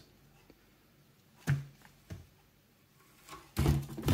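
Handling noise from paper and unboxed items: a few brief rustles and knocks as a printed flyer and posters are shuffled and laid down, a single one about a second and a half in and a louder cluster near the end.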